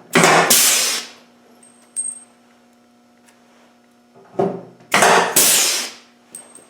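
Two bursts of hissing air from a pneumatic workshop tool, each about a second long: one at the start and one about five seconds in. Each follows a short, lower clatter.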